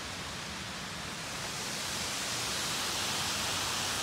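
A waterfall's steady rushing across a gorge. It grows louder and brighter from about a second and a half in.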